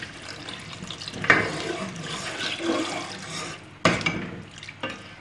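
Water pouring from a glass into a metal pot of mutton curry and being stirred into the thick gravy with a ladle, splashing and sloshing. A sharp knock just before four seconds in, the ladle striking the pot.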